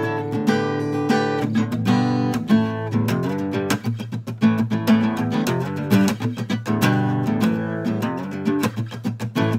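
Solo acoustic guitar played by hand: quick runs of picked notes mixed with ringing chords.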